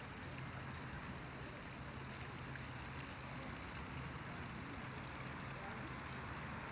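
Steady outdoor background noise: an even hiss with a faint low hum underneath and no distinct events.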